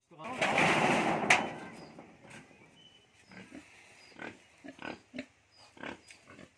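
Yorkshire cross pigs in a pen: a loud, rough outburst in the first second and a half, then a string of short, separate grunts.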